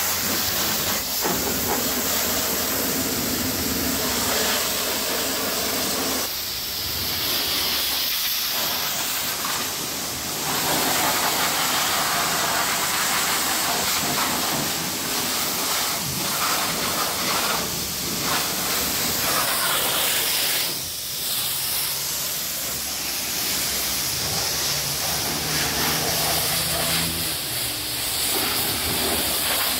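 Pressure washer's high-pressure water jet hissing steadily as it blasts a car's wheel, bumper and body panels, its tone shifting a few times as the spray moves to different surfaces.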